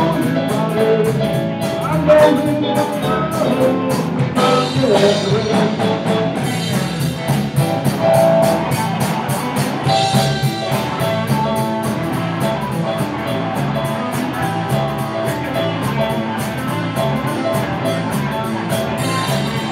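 Live rock band playing: electric guitar over electric bass, drum kit and keyboard.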